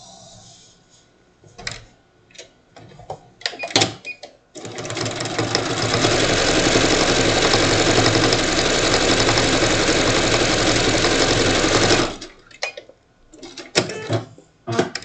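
Electric sewing machine stitching a seam through patchwork quilt fabric. It starts about four seconds in after a few handling clicks, builds up over a second, runs fast and steady with rapid needle strokes for about seven seconds, then stops abruptly and is followed by more clicks.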